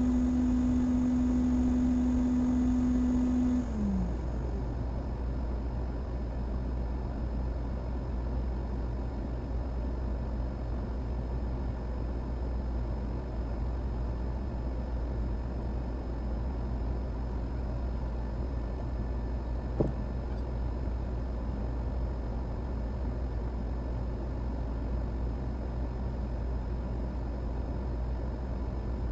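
A small fan or motor running with a steady hum that winds down and stops about four seconds in. After that comes a low steady hum, with a single sharp click about twenty seconds in.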